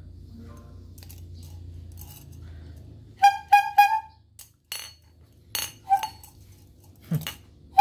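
Chrome bulb horn honked by squeezing its rubber bulb: three quick short honks about three seconds in, and another near six seconds. Between them come sharp metallic clicks and a knock from the horn and its clamp being handled.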